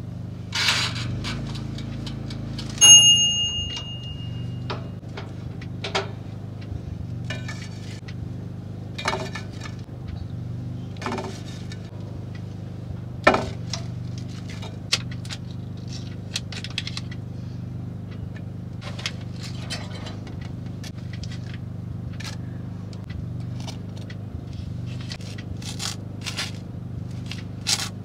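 Toaster oven's bell timer dings once about three seconds in, just after the knob is turned. Then scattered clinks and scrapes of metal tongs lifting toast onto a plate and a knife spreading butter, over a steady low hum.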